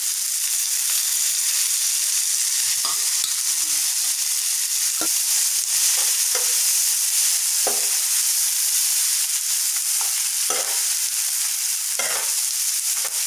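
Ridge gourd peel with onion, tomato and lentils sizzling steadily in oil in a pan while being sautéed, with short scrapes and knocks against the pan every second or two as it is stirred.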